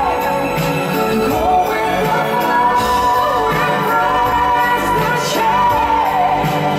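A woman singing long, wavering held notes through a microphone over live band accompaniment in a pop ballad.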